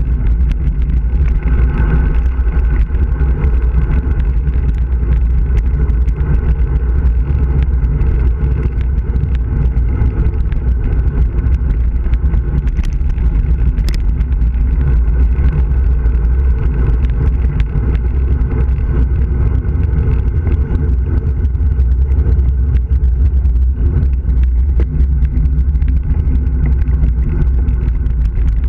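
Wind rushing over the microphone and tyre rumble on asphalt from a road bike descending fast, heavy and steady at the low end. A single sharp click about halfway through.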